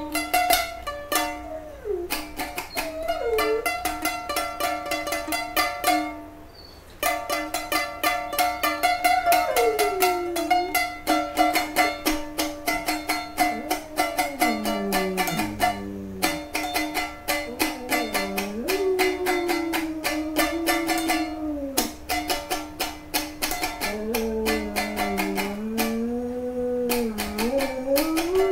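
A small guitar-like stringed instrument strummed quickly and steadily, stopping briefly about six seconds in, with a wordless voice sliding up and down in long drawn-out tones over it.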